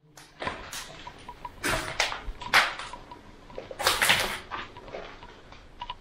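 Irregular short scuffing and crunching noises, typical of footsteps and movement on a rubble-strewn floor. The loudest come about two and a half and four seconds in. A faint short high beep sounds now and then.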